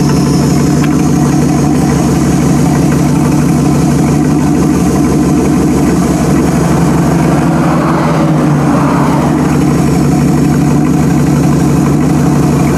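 A vehicle engine idling steadily and evenly, with no change in speed.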